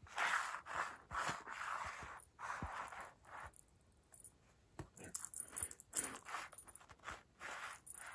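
A cat clawing and scratching at a rug, a series of short scratchy strokes with a pause of about a second midway.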